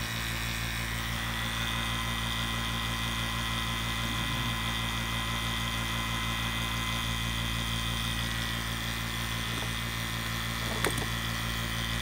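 CPS VPC2SU 2 CFM electric vacuum pump running steadily, pulling a deep vacuum on the gauge manifold and hoses at around 950 microns. There is one brief tick near the end.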